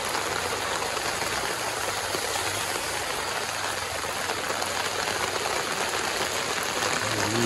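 Heavy rain pouring steadily onto a flooded street, a constant hiss of falling rain and water on the road.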